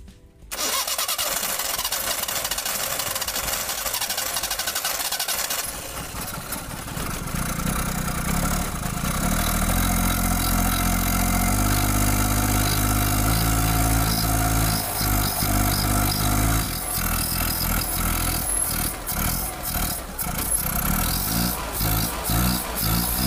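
A Maruti 800's three-cylinder petrol engine runs while its carburetor is worked by hand. The engine speed is held at a few steady levels, then rises and falls in quick blips toward the end.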